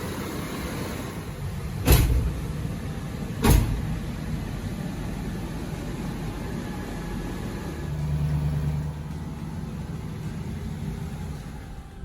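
A vehicle runs with a steady low rumble. Two car doors shut with sharp thuds, about two seconds and three and a half seconds in.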